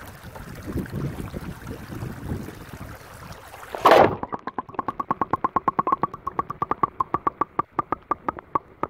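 Creek water rushing past the camera with knocks from handling. About four seconds in there is a loud splash as the camera plunges into the creek, and then a quick, regular train of bubbling pips that slowly space out.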